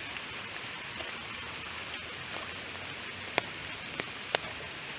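Steady hiss of floodwater rushing from a stream overflowing its banks, with a few sharp clicks in the second half.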